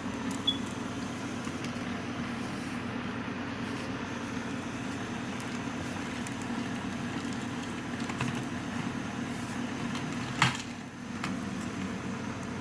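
Steady low hum, like a household machine or air conditioner running, with a single sharp click about ten seconds in.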